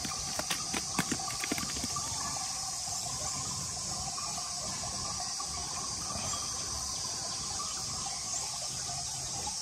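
Steady rush of flowing water, with a few sharp knocks in the first second and a half.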